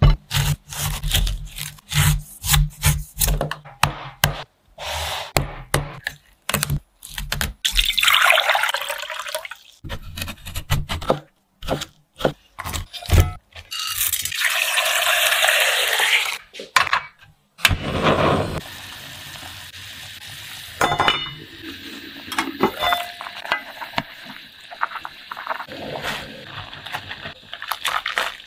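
Kitchen cooking sounds cut one after another: a run of short knocks and thuds for the first seven seconds or so, then liquid pouring twice, briefly around eight seconds in and for about two seconds from fourteen seconds. After that come running, splashing water and a few clinks of pots and dishes.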